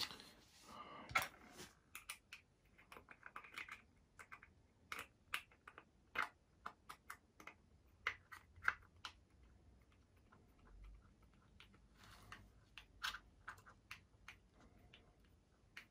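Faint, irregular clicks and taps of plastic and metal parts being handled, as a nose cap is worked onto a 90 mm EDF fan unit, with a short scraping rustle near the start and a quieter lull about two-thirds of the way through.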